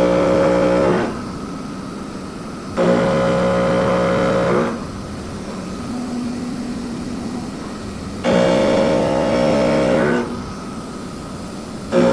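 CNC machining center milling a thin-walled welded pipe part. The cutter rings with a steady pitched hum in repeated bursts about two seconds long, each starting and stopping abruptly, with the machine's steady running noise in between.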